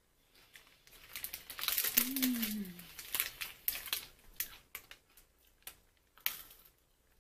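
Foil-lined plastic snack-bar wrapper crinkling as it is handled and pushed back to get at the bar, densest between about one and four and a half seconds in, then a few scattered crackles. A short falling hum partway through.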